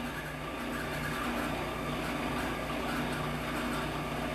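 Food processor motor running steadily, its blade spinning and grinding sunflower seeds into sunflower seed butter; the ground seeds are just starting to turn sticky as their oils come out.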